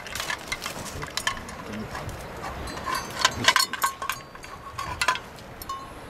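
Large long-haired dog eating from a metal plate on the ground: irregular licks, chomps and clinks against the plate, busiest about three to four seconds in.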